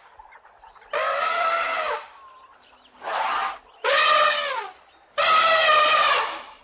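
An animal calling: four separate drawn-out calls, each about half a second to a second long, with short pauses between them.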